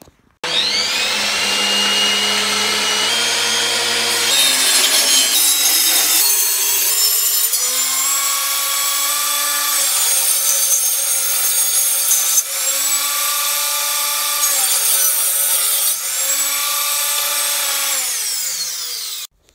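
Benchtop table saw starting up and crosscutting the ends off a walnut and red oak end-grain cutting board. The motor's whine climbs as it starts, then drops in pitch and recovers several times as the blade bites into the hardwood.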